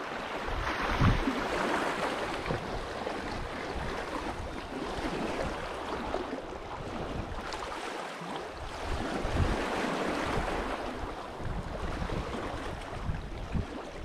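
Lake Superior waves breaking on the shore: a continuous rush of surf that swells and eases every few seconds.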